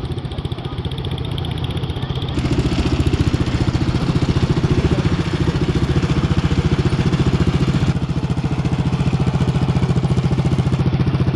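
An engine running steadily with a fast, even beat, growing louder about two seconds in and then holding steady.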